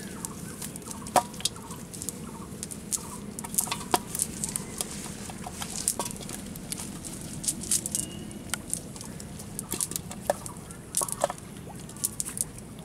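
Irregular sharp taps, clicks and rustles of small fish being picked out of a wet cast net on grass and dropped into a basin, some louder knocks among them.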